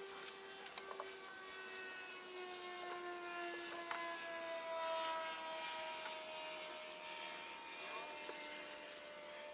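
Faint droning engine, a steady pitched hum whose pitch slowly falls, with a few light clicks over it.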